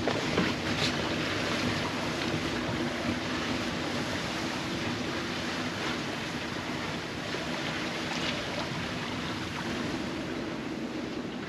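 Wind and sea rushing past an Alberg 30 sloop sailing under reefed main in a building breeze, a steady wash of water along the hull, with a couple of light knocks in the first second.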